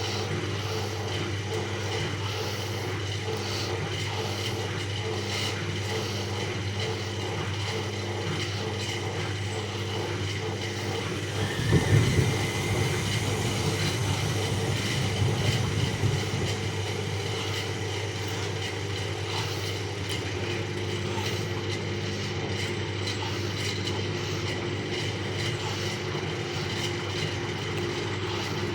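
Bauknecht WAS 1400 washing machine running with a steady low motor hum. About twelve seconds in, a louder, uneven rumble comes in for a few seconds, then the steady hum goes on alone.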